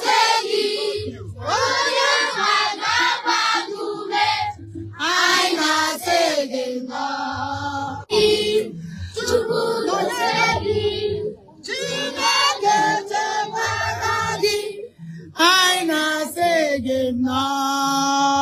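Voices singing a worship song, in sung phrases with gliding pitches and a long held note near the end.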